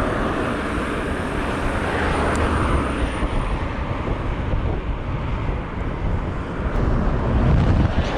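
Strong wind buffeting the microphone of a camera on a moving bicycle, a steady low rumble with a rushing hiss above it.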